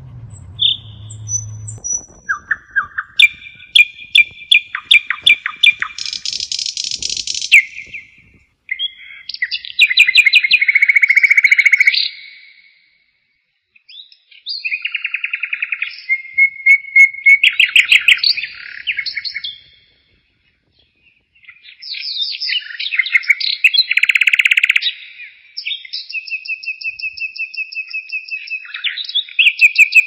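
Nightingale singing: phrases of rapidly repeated notes and whistles, broken twice by pauses of a second or two.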